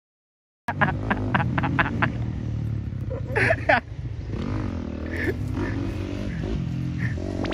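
Motocross bike engine running, cutting in abruptly under a second in and wavering in pitch, with sharp clicks early on and a brief louder burst about halfway through.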